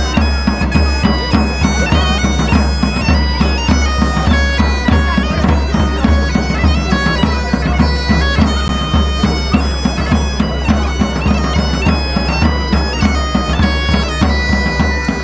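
Bagpipe playing a melody over its steady low drones, with two large shoulder-slung drums beating a regular rhythm along with it.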